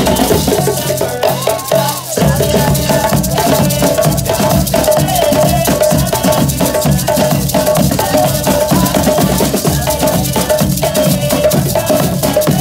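Drum ensemble playing a fast, steady rhythm: talking drums beaten with curved sticks and snare drums, with shakers rattling. A steady pitched tone runs through the drumming.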